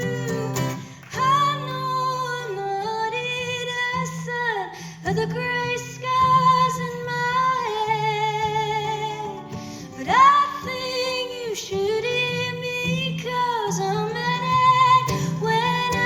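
Live music: a woman singing long held and sliding notes with vibrato, over guitar accompaniment.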